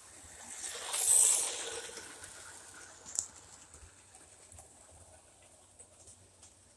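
O-gauge model train led by a Class 35 Hymek diesel locomotive running past close by, its motor and wheels on the track rising to a brief peak and fading within about two seconds. A single sharp click about three seconds in, then faint ticks.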